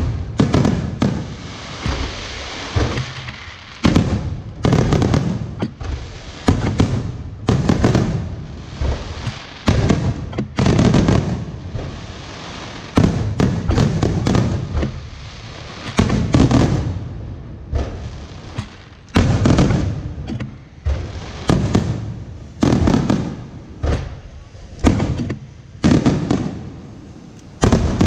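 Aerial fireworks going off in quick succession, about one burst a second and sometimes two close together. Each is a sharp bang followed by a low echo fading out.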